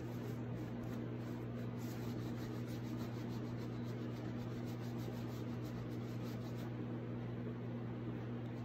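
Cloth rag rubbing back and forth over a waxed, painted book, wiping off dark wax in faint repeated strokes that stop near the end. A steady low electrical hum runs under it.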